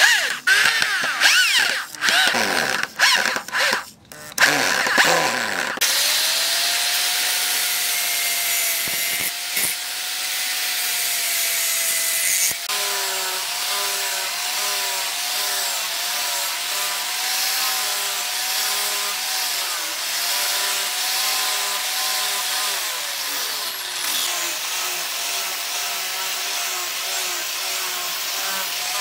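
Electric hand drill run in short bursts, speeding up and slowing down as it bores holes through a knife's wooden handle scales. Then, from about six seconds in, an angle grinder with a rubber-backed sanding disc runs steadily against the wooden handle to sand it to shape, its whine wavering as the load changes.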